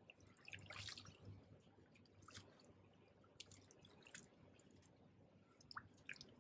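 Faint, scattered drips and small splashes of water as a hooked barbel is held and handled in the shallows. The busiest cluster comes about a second in, followed by a few single light splashes.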